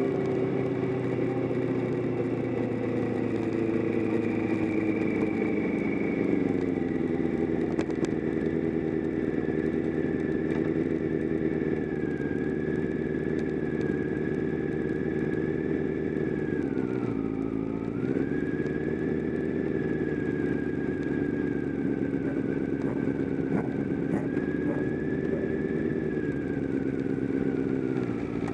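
Motorcycle engine running hard at high, steady revs on a race track. About two thirds of the way through, the revs dip briefly and climb back.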